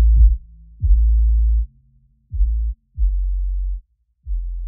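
Background electronic music: a bass line of deep notes, each starting sharply and held for up to a second, about one a second.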